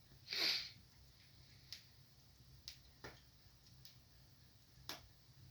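Wood fire in a fireplace crackling faintly: one short hissing pop near the start, then a few sparse, irregular clicks.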